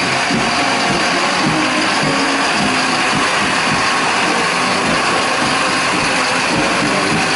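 Mercedes-Benz fire engine's diesel engine running as the truck drives slowly past at close range.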